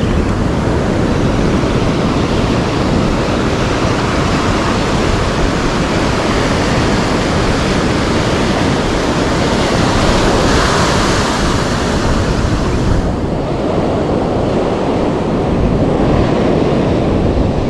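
Surf breaking and washing up the beach, a steady rush of noise, with wind on the microphone; one wave swells louder about two-thirds of the way through.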